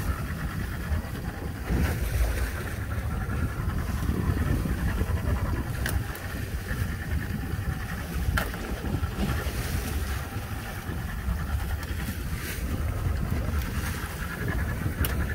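Steady rumble of a small open fishing boat under way, with wind on the microphone and water against the hull. A few short knocks, as the trammel net is paid out over the side.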